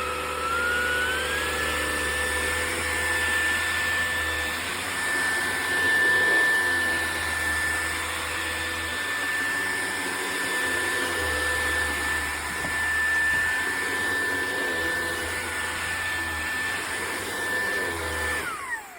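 Levoit cordless stick vacuum running at its maximum power setting: a high motor whine over rushing air, with a lower rumble that comes and goes. The whine steps up in pitch in the first two seconds, holds steady, then winds down with a falling pitch near the end as the vacuum is switched off.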